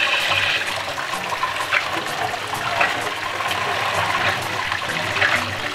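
Tap water running into a metal strainer of aloe vera gel cubes in a sink, splashing as a hand stirs and rinses the cubes.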